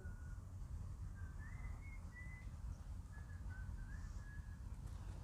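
Whistling: a string of short, clear notes stepping up and down in pitch like a tune, over a steady low rumble.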